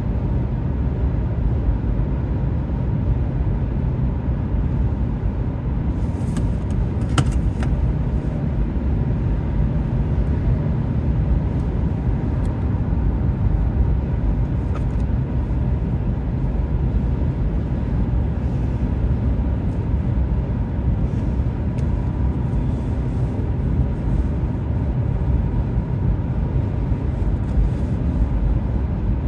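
Steady low rumble of a car's tyres and engine at highway speed, heard from inside the cabin.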